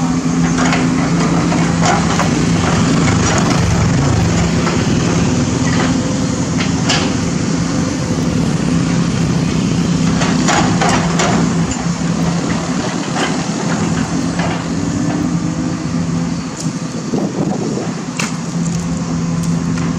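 Sumitomo SH210 hydraulic excavator's diesel engine running with a steady hum that drops away for several seconds past the middle, with scattered sharp clanks and knocks.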